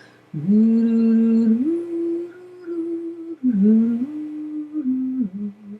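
A voice humming a slow lullaby tune with long held notes that step up and down in pitch, in two phrases with a short break between them.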